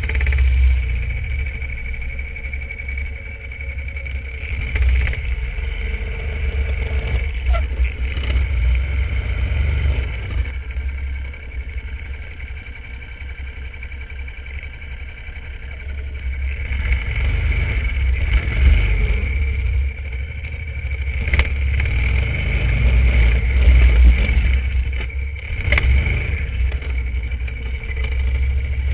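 Snowmobile engine running under load while the sled travels through deep snow, its sound swelling and easing with the throttle and a few sharp knocks from the sled over bumps.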